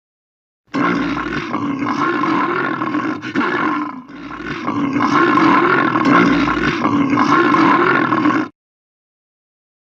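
Cartoon Wolf Shark creature roaring: two long roars back to back, the first about three seconds and the second about four, each cutting off sharply.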